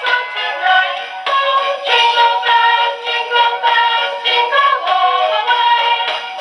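Christmas music with a synthesized singing voice, played by a voice-chip sound module through its small speaker: thin, with no bass.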